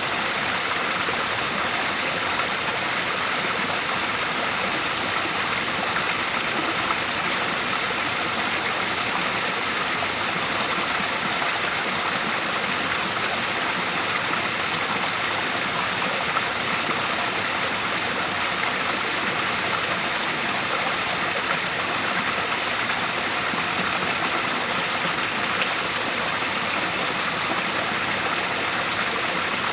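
Natural waterfall: a steady, unbroken rush of falling water, even in loudness throughout.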